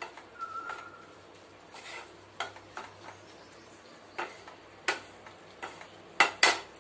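Wooden spatula stirring and scraping a potato and Malabar spinach stir-fry in a nonstick kadai, with scattered scrapes and clicks over a light sizzle. Two louder clacks of the spatula against the pan come near the end.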